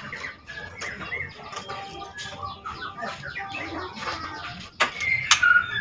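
Young white-rumped shama chattering with rattling "ketrek" calls and short whistled notes: a juvenile bird practising its song. Sharp clicking notes are mixed in, with two louder ones near the end.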